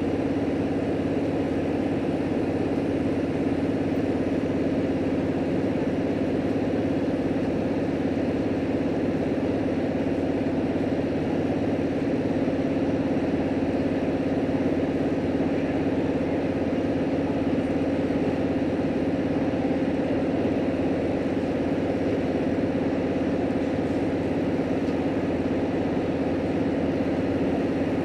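Steady drone of an H100 diesel-electric railcar heard from inside the passenger cabin: the diesel engine and running gear holding one even pitch, with no change in speed or load.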